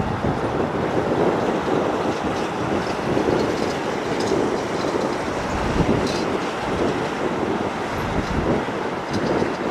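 Boeing 777-300ER's two GE90-115B turbofans at takeoff thrust during the takeoff roll: a steady, dense noise with no let-up, heaviest in the low-middle range, with a few faint ticks high above it.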